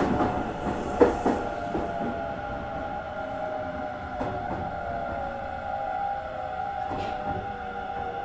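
Hanshin 1000 series electric train heard from inside while it slows down: the traction motor whine falls gradually in pitch and the running noise fades, with a few sharp clicks from the wheels on the track.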